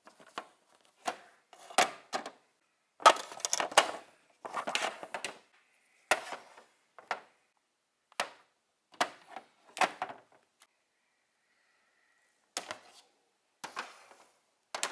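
Plastic Triceratops and Smilodon toy figures knocking against each other and against a plastic play mat: an irregular run of clacks and knocks, with longer scuffling and scraping about three to five seconds in.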